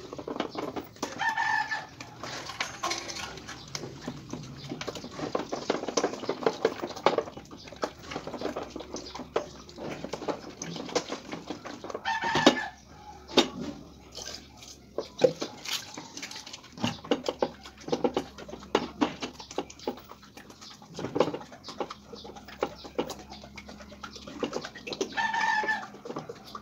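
Knocks, clatter and scraping as buckets of latex primer are handled and poured. A chicken in the background gives three short calls: near the start, in the middle and near the end.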